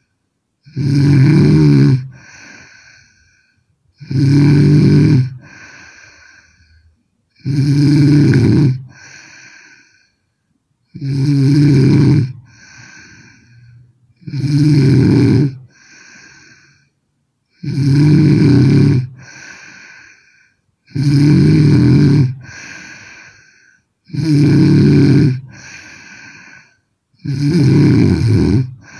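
A sleeping woman snoring loudly in a steady rhythm, one heavy rattling snore about every three seconds, each followed by a softer breath.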